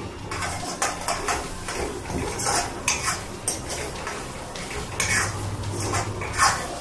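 A steel spoon scraping and clinking against an iron kadhai as chopped onions are stirred, in a run of irregular strokes with the loudest near the end.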